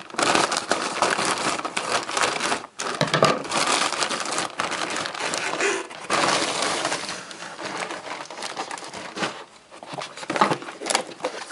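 Thin plastic mailer bag crinkling and rustling as it is cut open with scissors and its contents pulled out. The crinkling dies down about two thirds of the way in, then comes back as a few sharp crinkles of a plastic air-cushion wrapping being handled near the end.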